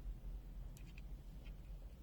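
A few light clicks and taps of the multimeter's plastic case and parts being handled during disassembly, over a steady low hum.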